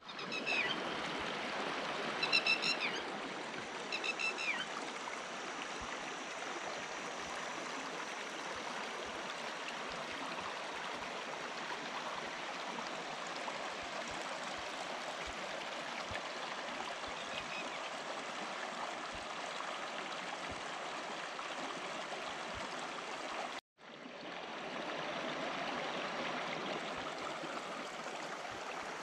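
Shallow stream water running and trickling steadily over rocks. A few short high chirps sound three times in the first few seconds, and the sound breaks off for an instant about two-thirds of the way through.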